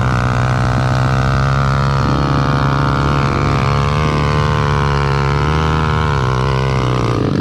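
Small pit bike engine running at steady high revs, its pitch holding nearly level, wavering slightly and then stopping abruptly near the end.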